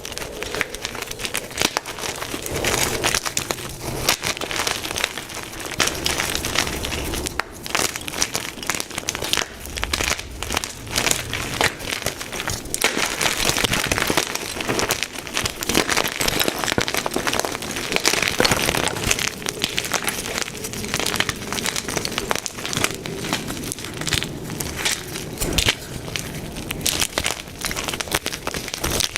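White gym chalk blocks being crushed and crumbled, a dense run of crisp crunching and crackling with no pause.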